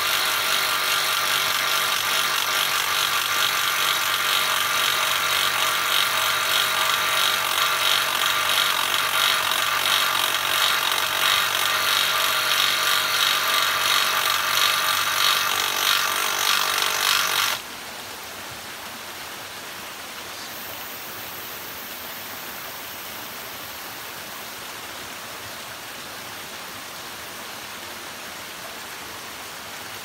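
A power tool or small engine runs steadily at one pitch, then cuts off suddenly a little past halfway. After that only the steady rush of a creek with a small waterfall is left.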